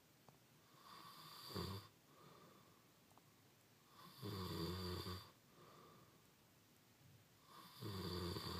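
A man snoring in his sleep: three loud, rough snores about three and a half seconds apart, with softer breathing in between.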